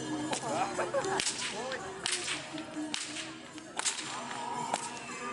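Hungarian karikás ostor, a herdsman's bullwhip with a braided leather lash, being cracked repeatedly: six sharp cracks at about one a second.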